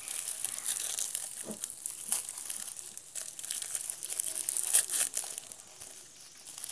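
Small trading-card packet wrappers being torn open and crinkled by hand: irregular crackling and rustling, with the sharpest crackle a little after the middle.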